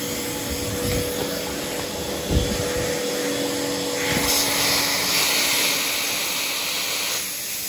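Portable carpet-cleaning extractor with a three-stage vacuum running steadily, with a low thump about two seconds in. About four seconds in, a loud hiss of water spraying from the upholstery tool starts and stops shortly before the end, as the cool water is flushed out of the line.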